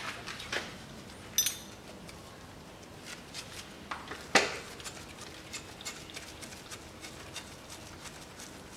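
Hand tools clinking and knocking against a car engine's metal parts, irregular light clicks with two louder clanks, about a second and a half in and about four and a half seconds in.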